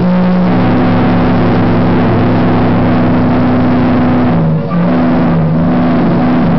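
Several large steam whistles blowing together in a loud, sustained low chord over a heavy rush of escaping steam; the chord falters briefly about four and a half seconds in, then carries on.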